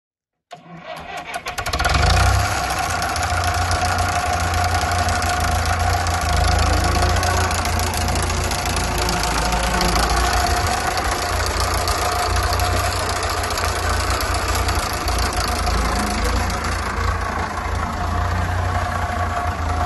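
1958 Fordson Major tractor's four-cylinder engine cranking briefly and catching about two seconds in, then running steadily as the tractor is driven.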